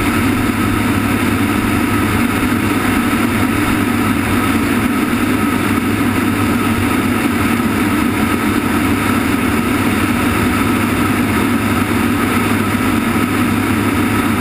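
Cargo aircraft in flight with its rear ramp open: a loud, steady drone of the engines mixed with the rush of the slipstream past the ramp.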